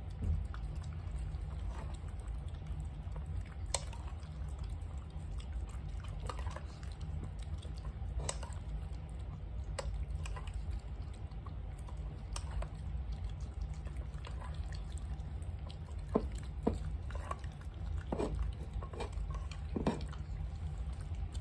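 Small dogs eating: a Pomeranian licking wet food off a spoon and Shih Tzus chewing from their bowls, heard as scattered wet smacks and light clicks over a steady low hum.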